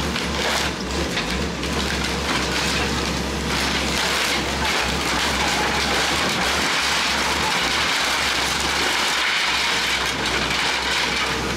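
Clay roof tiles, brick and timber crashing and clattering down as an excavator's hydraulic demolition crusher breaks through a house roof and wall. The excavator's diesel engine runs as a steady low hum underneath.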